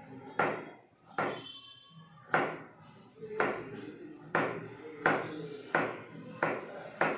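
Kitchen knife slicing a carrot into rounds on a plastic cutting board: a string of sharp knocks, about nine strokes at roughly one every three-quarters of a second, each a blade chopping through onto the board.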